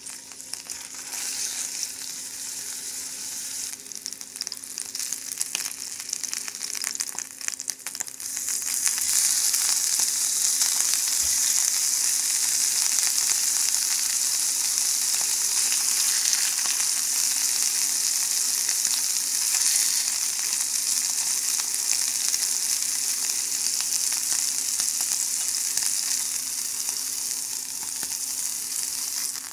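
Beef steaks searing in hot oil in a frying pan: a steady sizzle with fine crackling that grows louder about eight seconds in.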